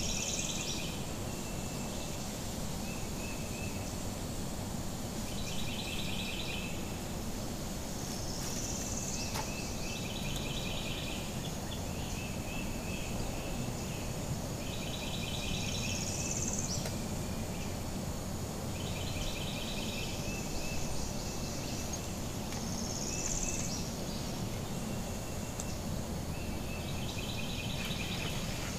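Birds singing in woodland: one bird repeats a short phrase of rapid notes about every three seconds, and a higher rising call comes in every several seconds, over a steady low background noise.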